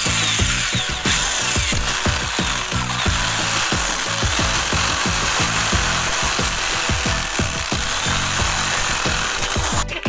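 Electric drill boring a hole through the wall of a plastic pipe, a steady grinding whir that stops just before the end. Background music with a steady beat plays underneath.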